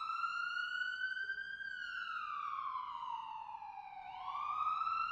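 Siren wail: one steady pitch with overtones that climbs, slides slowly down from just under two seconds in, then climbs again about four seconds in.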